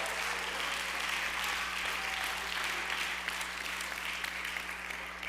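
Church congregation clapping and cheering in response to the preacher's call to give God a shout, steady and then fading away near the end.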